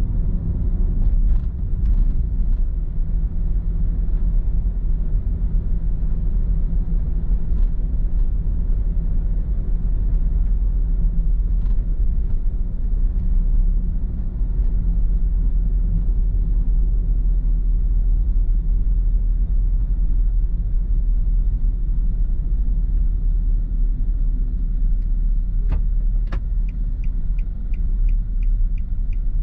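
Steady low road and engine rumble of a car driving, heard from inside the car. Near the end, two sharp clicks are followed by a rapid, regular ticking of about three ticks a second.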